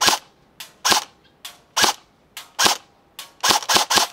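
E&L AKM airsoft electric rifle firing on semi-automatic: four single shots about a second apart, then a quicker string of shots near the end. A fainter tap follows each single shot about half a second later.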